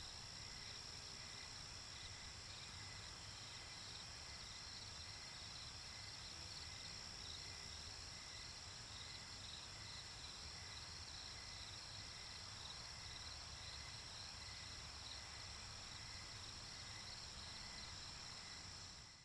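A chorus of crickets trilling steadily, with rhythmic pulsing chirps beneath the high trill, over a low steady rumble.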